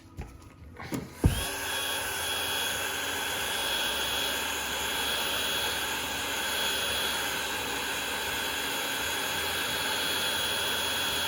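Handheld hot-air heat gun switched on with a click about a second in, then running steadily: a fan hiss with a constant high whine, heating the phone to soften the screen adhesive.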